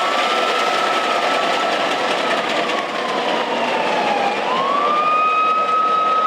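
Emergency-vehicle siren wailing, its pitch sliding slowly down and then rising again a little past the middle to hold high, over a steady rush of vehicle noise.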